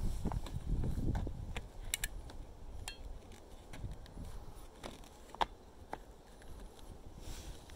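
Scattered light clicks and taps of a plastic metal-detector shaft and arm rest being handled and turned over by hand, with a low handling rumble in the first second or so.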